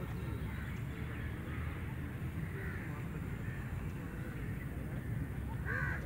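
Outdoor ambience: a steady low rumble with scattered bird calls, and one louder, harsher call near the end.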